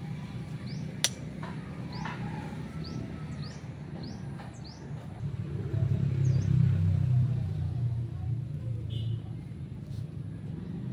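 A vehicle engine rumbling low and steadily, growing louder in the middle and then easing off. A small bird chirps repeatedly through the first half, and there is one sharp click about a second in.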